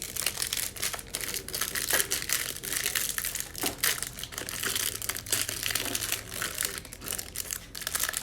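Trading card packaging crinkling and tearing as hanger boxes and their wrappers are opened by hand, a busy continuous stream of crackles.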